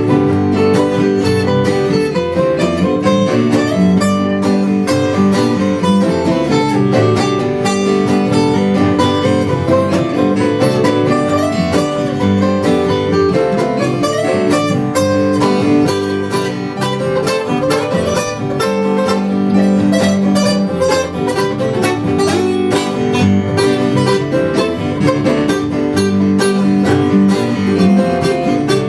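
Acoustic guitar music with no singing, many quickly picked notes over held chords in a country-folk style.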